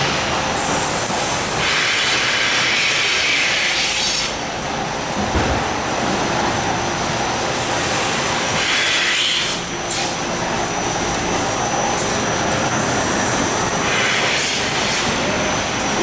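Steady machinery noise of a rotary milking parlour: the turning platform and the milking equipment running, with a thin steady whine. Hissing rises over it three times, about two seconds in, near the middle and near the end.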